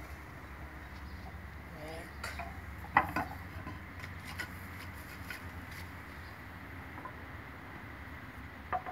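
Carved marble tile pieces clicking and knocking against each other and the wall as they are pressed into place by hand. There is one sharp knock about three seconds in, a few lighter clicks after it, and another knock near the end, over a steady low hum.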